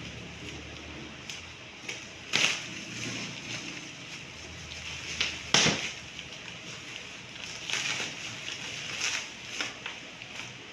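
Packaging being handled and rustled during an unboxing, with several short, sharp crackles; the loudest come about two and a half and five and a half seconds in.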